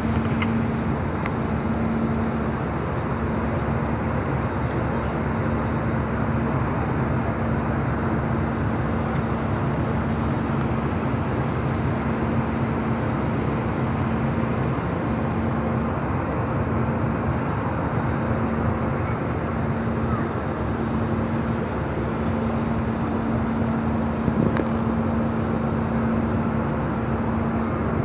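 Steady airliner cabin noise: a constant rushing roar of engines and cabin air with a steady low hum running through it.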